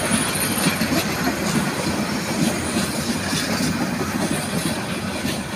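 Passenger coaches of an intercity train rolling past close by: a steady rumble of steel wheels on rail with regular clacks over the rail joints. A faint high wheel squeal fades out within about the first second.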